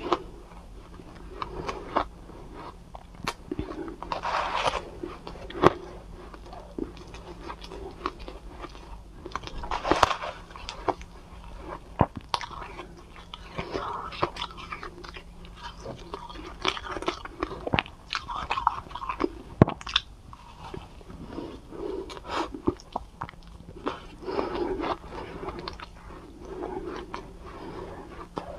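Close-up chewing and crunching of soft, powdery cotton ice, in irregular crunchy bites with many short sharp clicks. The clicks are likely a metal spoon against a plastic bowl.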